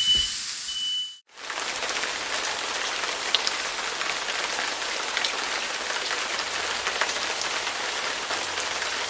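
Sliced mushrooms frying in butter and oil in a large cast iron pan: a steady sizzle with scattered small pops and crackles. In the first second a short high beep sounds over the hiss, before a brief break.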